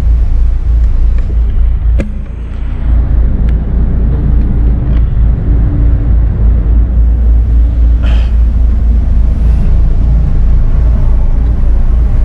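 Tugboat's diesel engines running with a steady low drone. A sharp click sounds about two seconds in.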